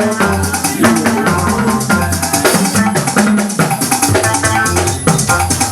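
Live Yoruba gospel band music with no voice: shakers rattling on a steady beat over a bass line and melody instruments.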